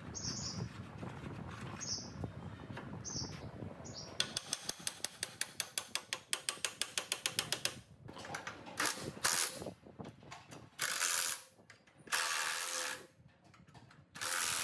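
A rapid, even run of mechanical ratchet-like clicks, about six a second, lasting some four seconds. Before it there is a low rough rumble with a few faint squeaks; after it come several short bursts of hiss.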